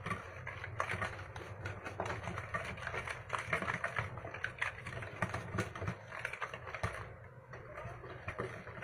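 Puto batter being mixed by hand in a bowl: quick, irregular clicking and tapping of the mixing utensil against the bowl, easing off briefly about seven seconds in.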